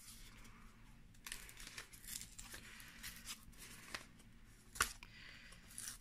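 Paper-and-card die packaging being pulled and torn open by hand: faint rustling and crinkling with scattered sharp crackles, the loudest a little before the end.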